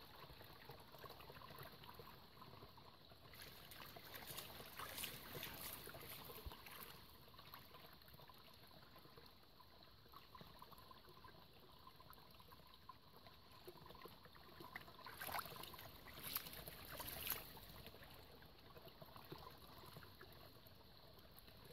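Shallow forest stream trickling quietly, with louder splashing bursts about four to six seconds in and again around fifteen to seventeen seconds in as a dog wades in the water.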